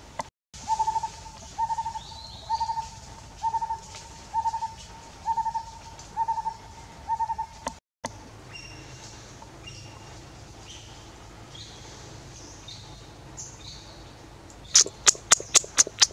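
A bird's repeated hooting call, one short note about every second for eight notes, then cut off abruptly. Faint higher bird chirps follow, and near the end six loud sharp clicks come in quick succession.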